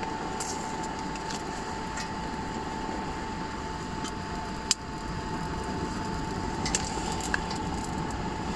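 Small wood-burning camp stove being tended by hand: scattered clicks and knocks of sticks and metal, the sharpest a little before halfway, over a steady hiss and a faint constant hum.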